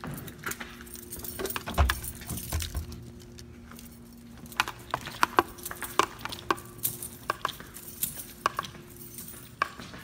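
Keys jangling and clinking in an irregular rattle as someone walks, with a couple of low thuds about two seconds in. A faint steady hum sits under the first few seconds.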